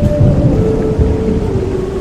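Rain-and-thunder ambience: a heavy, continuous low rumble, with a few held tones over it that step from one pitch to another.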